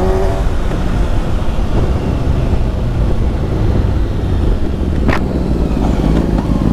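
A motor vehicle engine running with a steady low rumble, and a sharp click about five seconds in.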